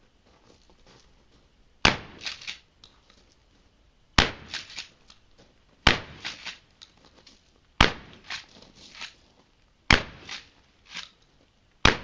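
Mossberg 500 12-gauge pump-action shotgun fired six times, about two seconds apart, with clacks after each shot as the pump is worked.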